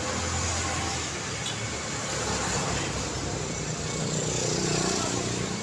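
Road traffic passing steadily, with a vehicle going by louder about four to five seconds in.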